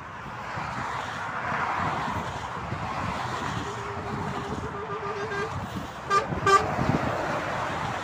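Motorway traffic passing with steady tyre and engine noise, then two short vehicle-horn honks close together about six seconds in.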